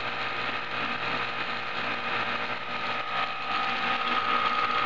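Home-built e-bike drive, a car alternator converted into a motor, spinning the bike's rear wheel at about 320 rpm through a toothed belt reduction and chain, with no load on the wheel. It makes a steady mechanical whirr with a high whine that grows a little stronger about three seconds in.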